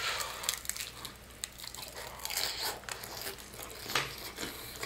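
Biting into and chewing a fried chicken drumstick coated in a hard, glassy tanghulu sugar shell: a run of irregular sharp crunches and cracks as the candy crust breaks.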